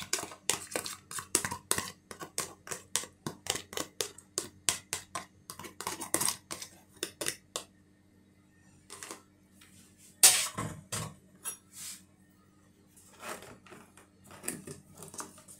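Kitchen utensil and plastic container clicking and knocking against a mixing bowl as mashed banana is scraped out into the batter: a quick run of small clicks, about four a second, for the first half, then a few scattered knocks, the loudest a little after the middle.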